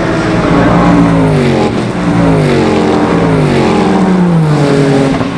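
Sports racing cars passing close by at speed, one after another. Each car's engine note drops in pitch as it goes past.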